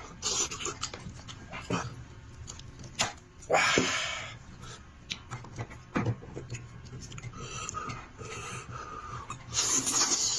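Close-miked mouth sounds of eating braised sheep's head: wet chewing and lip-smacking with sharp clicks, and two longer, louder sucking slurps, one about four seconds in and one near the end.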